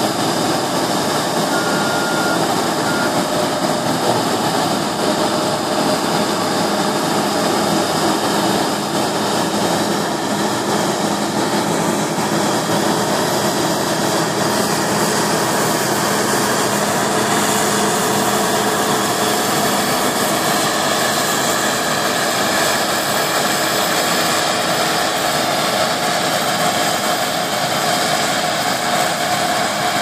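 New Holland TX64 Plus combine harvester running steadily under load while cutting and threshing barley: a dense, even machinery noise with several faint steady whines.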